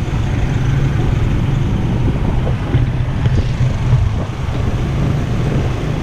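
Small engine of the motorbike or tricycle carrying the camera, running steadily while under way, with wind noise on the microphone.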